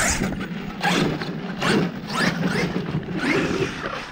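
Electric motor of an RC truck revving repeatedly: a series of rising whines, each lasting under half a second, over a steady low drone.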